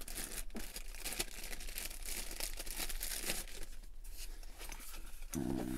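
Packaging being handled and opened by hand: crinkling and rustling with a steady run of quick crackles.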